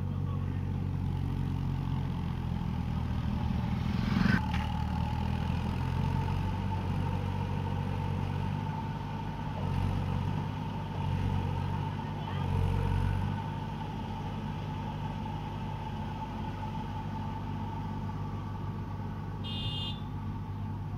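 Diesel tractor engines running with a steady low engine note, with one sharp knock about four seconds in.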